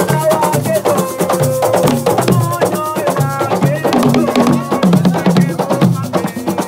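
Drum ensemble playing a fast, dense rhythm, with voices singing or calling over it.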